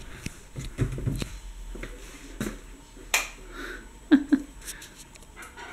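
Handling noise and footsteps of a handheld camera carried along a hallway: scattered light clicks and taps, with one sharper click about three seconds in and two short low blips a second later.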